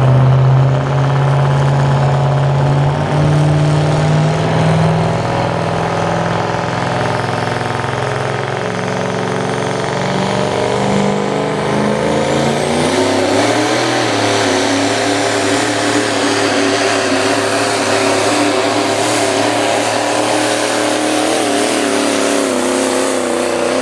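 Turbocharged diesel four-wheel-drive pickup pulling a weight-transfer sled. The engine runs at a low, steady note, then revs climb about 13 seconds in and hold high under heavy load.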